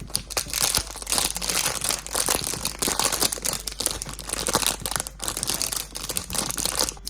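Packaging from a gachapon capsule prize crinkling and tearing as it is opened by hand: a dense run of crackles, louder from about a second in.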